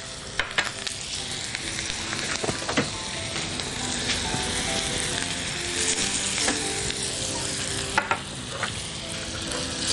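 Phodni (spice tempering) sizzling in hot oil in a small pan: green chilli pieces and spices frying steadily, with a few sharp crackling pops.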